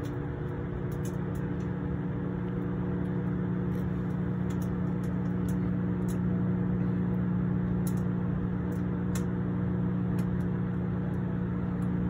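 Microwave oven running: a steady low electrical hum with a few faint ticks.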